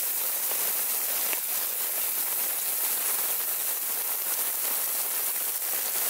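Steady rain falling, an even continuous hiss.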